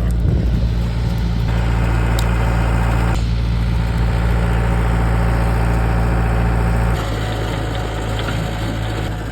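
Excavator's diesel engine running steadily, then settling to a lower, quieter note about seven seconds in.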